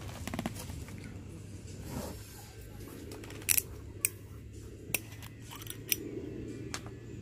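Several sharp clicks, about five spread through the middle and latter part, over a low steady hum and light handling noise.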